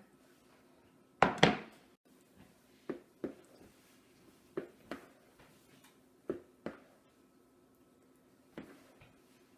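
Spatula or spoon knocking against a mixing bowl while beaten egg whites are folded into cake batter, in short knocks that mostly come in pairs every second or two, the first pair the loudest.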